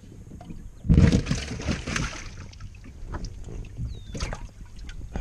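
Water splashing and sloshing in a bass boat's live well, with a loud splash about a second in lasting a little over a second, then scattered knocks and drips.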